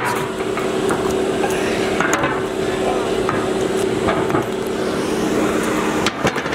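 Iron storm-drain grates being handled, with a few metal knocks, over a steady hum.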